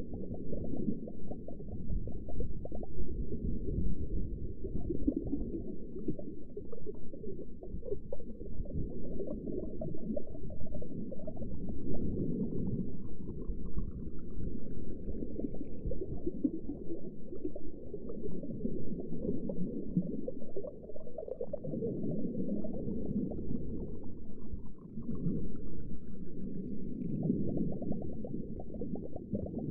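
Underwater ambience: a continuous low, muffled bubbling and gurgling rumble, with a faint rising whine twice, about halfway through and again near the end.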